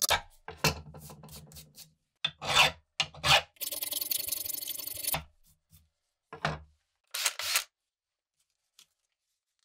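Hand file rasping across the steel of an antique hatchet head in separate, uneven strokes, with one longer drawn stroke about four seconds in; the strokes stop about three-quarters of the way through.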